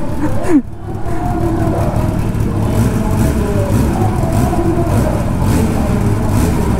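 Kawasaki ZX-10R's inline-four engine running steadily during an emissions (pollution) test, with the tester's probe held in its exhaust.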